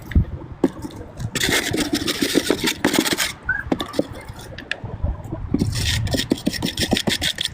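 Wire battery-terminal brush scrubbing and scraping crusty corrosion off a car battery terminal, in two bouts of gritty scratching with a short pause between.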